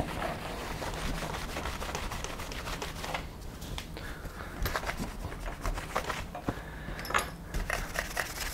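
Cloth rag rubbing and wiping over an RC buggy's chassis, a dense scuffing for the first few seconds, then lighter scattered taps and clicks as it is handled. Near the end a paintbrush sweeps over the chassis.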